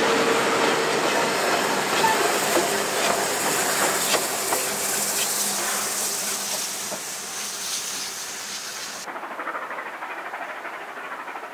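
NSW C38-class steam locomotive 3801 and its train passing on a curve: steam hissing and wheels clicking over rail joints, with a flange squeal dying out at the start and the sound fading as the train draws away. About nine seconds in, the sound cuts abruptly to a quieter, duller, distant train.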